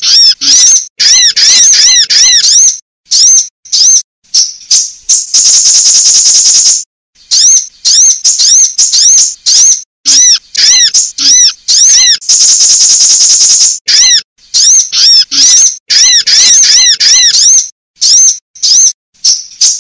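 Sunbirds calling in a bird-lure recording: rapid, high, sharply arched chirps alternating with long buzzy trills, loud and repeated in phrases that cut off abruptly.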